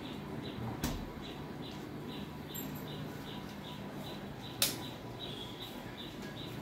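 Freezer door pushed shut with a thump about a second in, and another sharp click a few seconds later. A faint high chirp repeats evenly about three times a second over a steady low hum.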